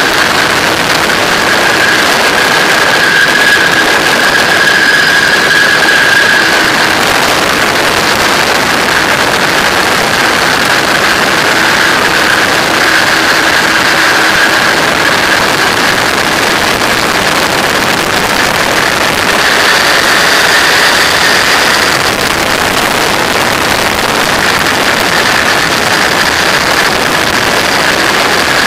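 Flex-wing microlight trike in cruising flight: the engine and propeller run steadily under a loud rush of wind on the microphone, with a high tone running through it.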